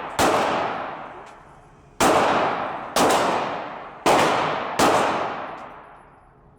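Five 9mm pistol shots fired at a steady pace, about a second apart, the first just after the start. Each crack is followed by a long echoing decay.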